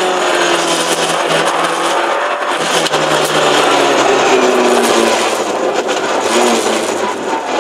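Car engine and road noise heard from inside the cabin while driving; the engine note falls in steps in the second half as the car slows.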